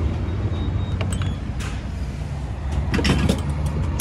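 Steady low engine and road hum of a car, heard from inside the cabin, with a few light clicks and knocks.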